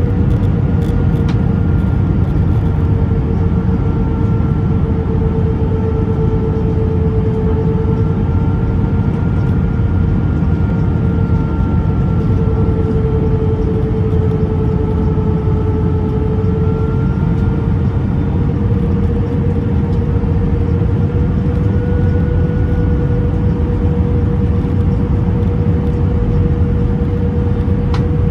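Cabin noise inside an Airbus A319 descending on approach: a loud, steady rumble of engines and rushing air, with a steady engine hum that wavers slightly in pitch.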